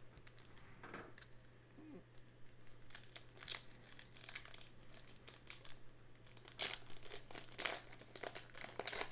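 Topps Heritage baseball card pack wrapper crinkling and tearing as it is peeled open by hand along its crimped seam. The crackles are irregular and grow louder in the second half.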